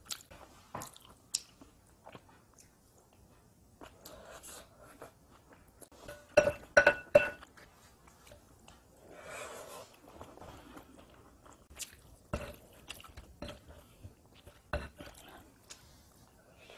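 A person eating: utensils clink and scrape against a glass mixing bowl, with a cluster of three loud ringing clinks about six to seven seconds in, and mouthfuls of food being chewed between the clinks.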